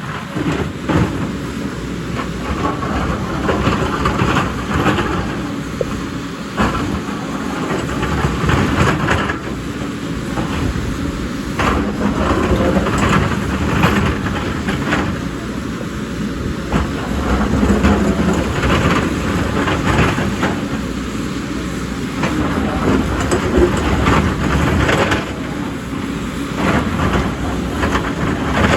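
Excavator's diesel engine running under load, with irregular knocking and scraping of the bucket against rock and soil as it digs.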